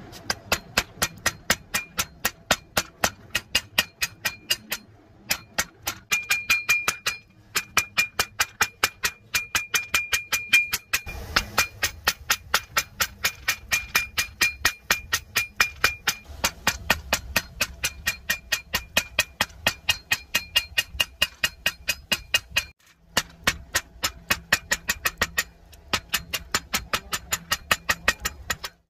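Hand hammer striking red-hot 1095 carbon steel on an anvil while forging a knife blade. The blows are steady, about two or three a second, each with a high ring from the anvil, in runs broken by a few short pauses.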